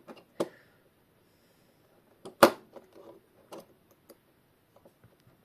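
A few clicks and knocks of small parts being handled as the battery is taken out of a quartz alarm clock movement and the multimeter probes are put to its contacts. The loudest knock comes about two and a half seconds in.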